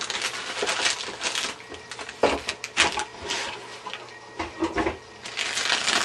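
Plastic anti-static bag crinkling as it is handled, in irregular sharp crackles.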